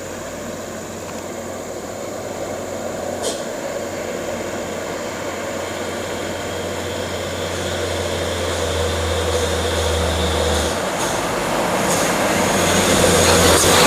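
Heavy timber-laden truck's diesel engine running, growing steadily louder as it approaches.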